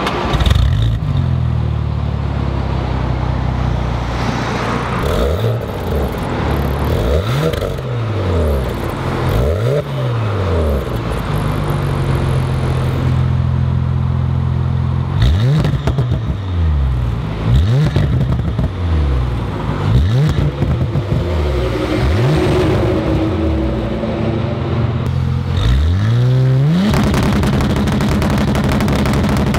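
2018 Porsche Panamera 4's twin-turbo V6 through an Armytrix turbo-back valvetronic exhaust, idling and blipped repeatedly, each rev rising and falling back. Near the end it revs up sharply and is held steady at high revs, ready for a hard launch.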